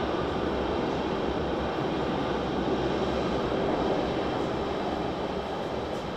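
Milan M4 line's driverless metro train running in an underground station: a steady rumble and whir.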